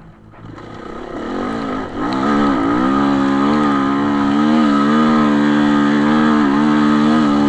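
Enduro motorcycle engine revving up under full throttle on a steep sand climb, dipping briefly about two seconds in, then held at high revs with a slightly wavering pitch.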